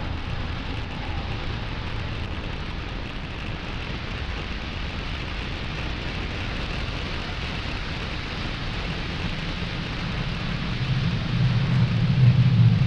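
Falcon 9 first stage's nine Merlin 1D engines heard during ascent as a steady rushing noise, with a deeper rumble swelling in the last two seconds or so.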